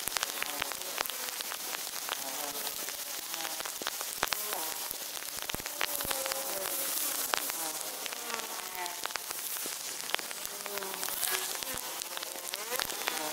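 Heavy rain falling on a wet road, a steady hiss with many sharp taps of drops striking close by.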